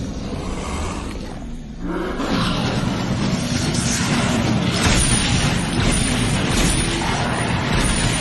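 Film sound mix of zombie Doberman dogs growling, with dense effects. The sound dips briefly about a second and a half in, then comes back fuller and louder.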